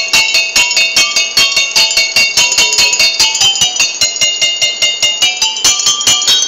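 Water bottle xylophone struck in a quick, even rhythm of about five notes a second, each strike a short bright ringing tone, playing a melody that steps up and down in pitch.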